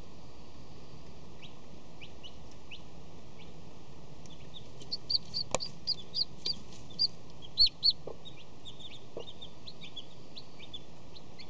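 Newly hatching chick peeping, with faint peeps at first. Around halfway comes a run of louder, short high peeps about two a second, the loudest pair closing the run, then fainter peeps again over a steady hiss.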